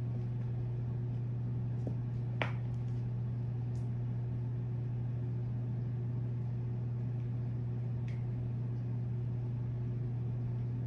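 Steady low hum of room background noise, with one faint click about two and a half seconds in.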